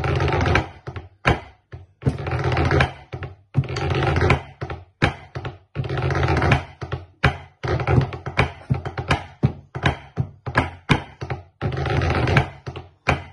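Pipe-band snare drum practice on a wooden practice board: drumsticks tapping out a quick rhythm broken by several dense rolls, each about a second long.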